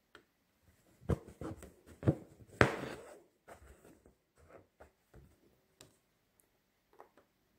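Embroidery needle and thread drawn through fabric stretched taut in a wooden embroidery hoop: a few short taps and rustles, the loudest a brief rasping swish about two and a half seconds in, then fainter ticks.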